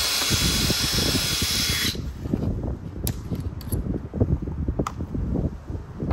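Cordless drill running a quarter-inch twist bit through a plastic dash tray: a steady high whine that stops about two seconds in as the bit breaks through and the trigger is released. A few sharp clicks follow.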